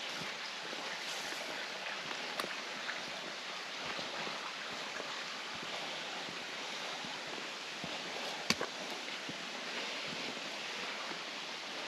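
Steady rushing of a woodland stream, with a faint sharp click about two and a half seconds in and a louder one about eight and a half seconds in.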